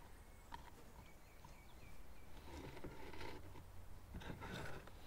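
Quiet outdoor background with a run of short, high chirps early on, then two stretches of rustling or scraping about three seconds in and again near the end.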